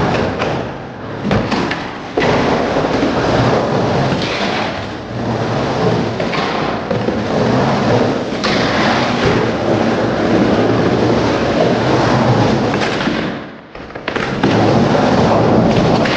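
Skateboard wheels rolling and carving across a wooden bowl: a continuous hollow rumble, with a few sharp clacks of the board about a second or two in. The rumble dips briefly near the end, then picks up again.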